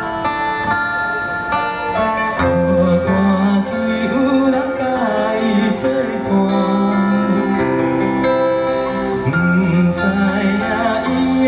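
Live band playing an instrumental passage of a Taiwanese Hokkien pop song, led by guitar with held melody notes; a bass line comes in about two seconds in.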